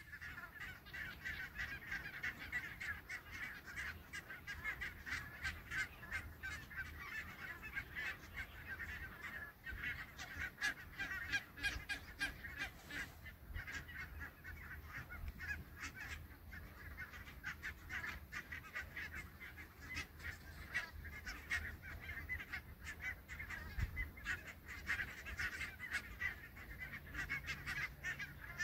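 A large flock of barnacle geese calling, many short calls overlapping in a constant chatter.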